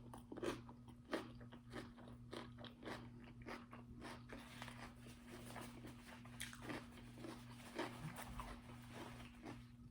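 A person chewing and biting crunchy food close to the microphone: a steady run of small, irregular crunches.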